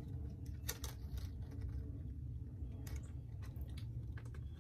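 Small cardboard gum box being handled and opened, with a few light clicks and taps scattered through, several close together near the end.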